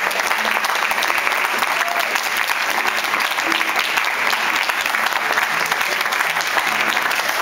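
Crowd of guests applauding, a steady dense clapping that does not let up.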